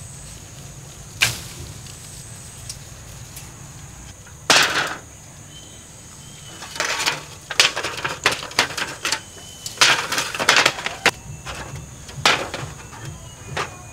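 Irregular sharp clicks and clattering knocks of hard objects being handled. A couple come singly at first, then quicker clusters follow over a faint steady high tone.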